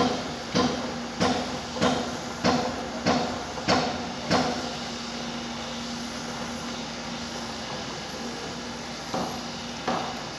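Hammer blows, about eight evenly spaced strikes a little under two per second, stopping about four and a half seconds in, with two more knocks near the end. Under them a steady machine hum runs throughout.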